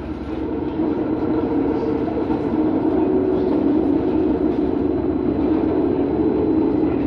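London tram running on its rails, heard from on board: a steady rumble with a motor hum, growing a little louder from about a second in.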